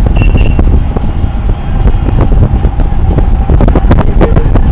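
Wind buffeting the microphone with a heavy low rumble and scattered knocks, over the running of small mini-bike engines with a faint steady whine.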